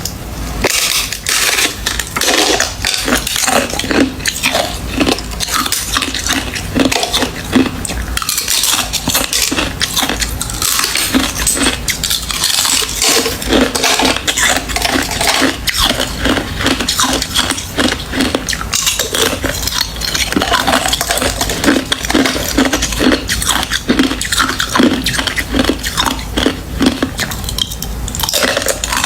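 Ice being chewed: a dense, unbroken run of crunches and cracks.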